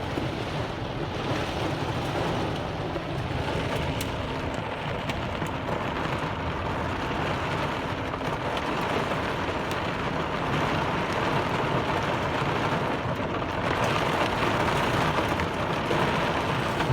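Heavy rain pouring down steadily in a torrential downpour.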